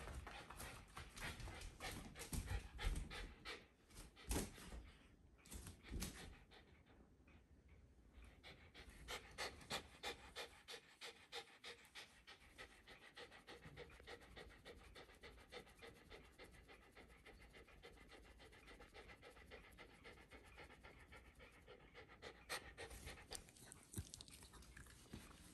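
Shiba Inu panting with its mouth open, a steady rhythm of a few quick breaths a second, louder over the first few seconds and softer after.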